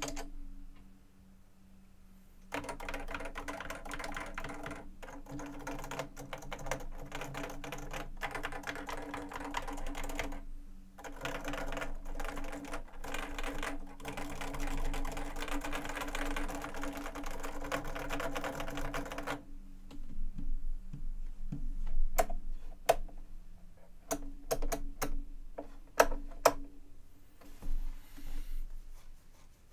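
Fast random typing on a JUKI Celavi FK212-JS keyboard with Topre Hipro switches and 25 g domes. It starts after a short pause, runs as dense strings of keystrokes with brief breaks, then thins to scattered single key presses over the last ten seconds or so, some of them louder.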